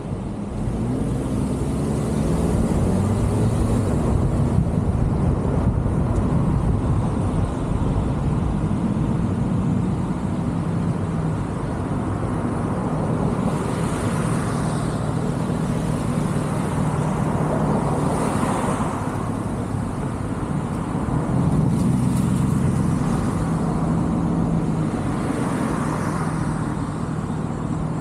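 Car driving on a city street, heard from a roof-mounted camera: engine, tyre and wind noise that rises as the car pulls away from a stop about half a second in, with louder swells of passing traffic now and then.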